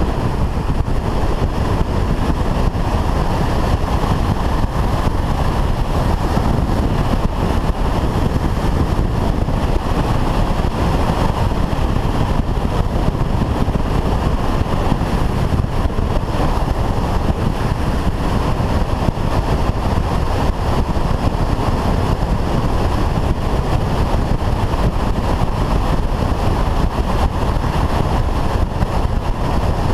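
Steady wind rush over a helmet-mounted camera on a Honda Varadero motorcycle cruising at road speed, with its V-twin engine and tyre noise underneath, unchanging throughout.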